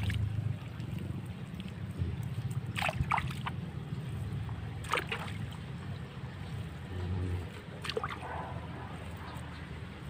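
A low steady rumble, with a few short, sharp high sounds about three, five and eight seconds in.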